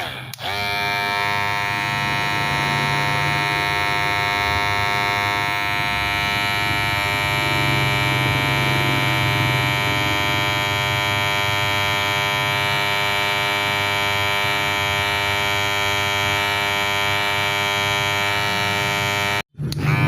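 Electric hair clipper running, a steady high buzz. It dips briefly just after the start and cuts out for a moment shortly before the end.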